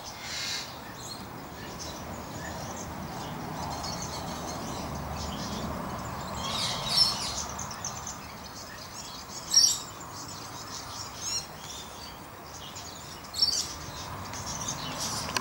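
Birds chirping in short, high bursts over a steady outdoor background hiss, with a few louder, sharper chirps scattered through.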